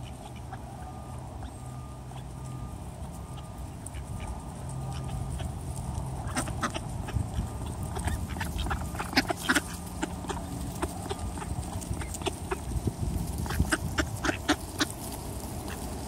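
Mallard ducks feeding at close range: short quacks and many quick, sharp clicks of bills pecking at the ground. The clicking starts about six seconds in and gets busier toward the end.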